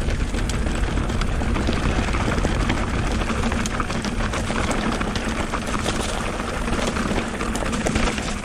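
Mountain bike descending a steep, rough dirt trail: continuous tyre rolling noise with rapid small clicks and rattles from the bike, and a steady low hum beneath.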